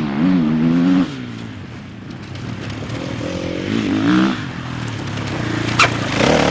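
Enduro dirt bike engine revving, its pitch rising and falling in several bursts, with one sharp knock near the end.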